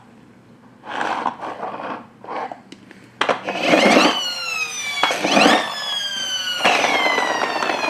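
Electronic sound effect from a battery-operated toy bus: a siren-like tone that slides down in pitch, starting about three seconds in and repeating about four times. Before it come a few soft handling rustles.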